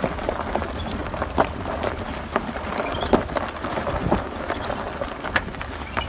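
2017 Chevrolet Colorado Z71 rolling slowly over a dirt track: tyres crunching over gravel and bark with irregular knocks, and a faint short squeak from the rear about three seconds in, a squeak that a leaf-spring service bulletin repair has not cured.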